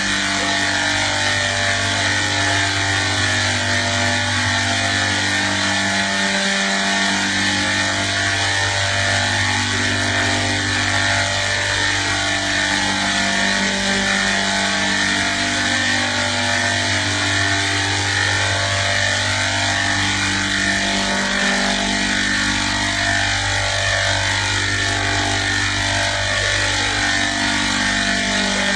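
Loud, steady old-TV static hiss laid over a low hum and muffled, distorted music whose held notes change every second or two.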